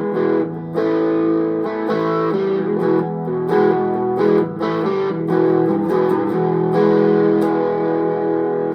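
Electric guitar on its neck pickup played through a Joyo overdrive pedal, gain at about half, into a Marshall MG15DFX amp's clean channel: a run of strummed, sustained overdriven chords that stops abruptly near the end.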